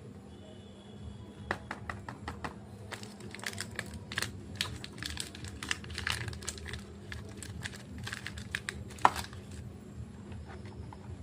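Chocolate packaging crinkling and crackling as it is handled and opened by hand. A dense run of sharp crackles starts about a second and a half in and stops near the end, with one louder crack shortly before it stops.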